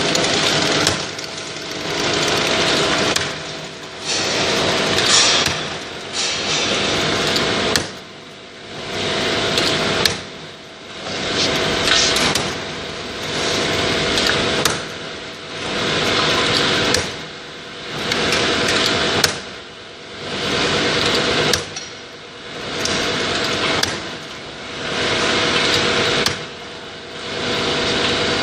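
Automatic bottle filling and capping machinery running on an oil bottling line: a continuous mechanical clatter over a steady hum, with sharp clicks, swelling and dipping in a regular cycle about every two to two and a half seconds as the machine indexes bottles through.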